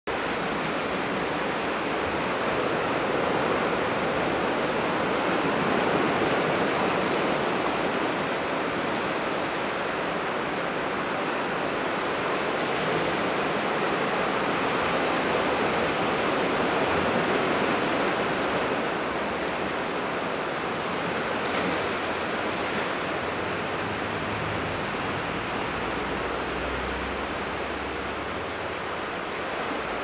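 Small sea waves breaking and washing against a rock breakwater and beach: a steady surf wash that swells a little at times.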